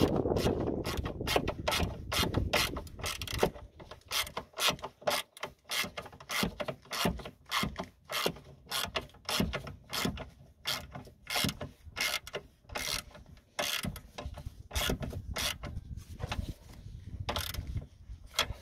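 Hand ratchet clicking as it is swung back and forth to tighten a nut on the diesel fuel filter bracket. Runs of pawl clicks repeat steadily, a little under two strokes a second.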